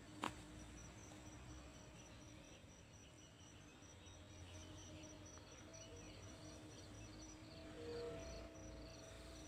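Faint, high-pitched insect chirping in short, evenly repeated pulses, with one sharp click just after the start.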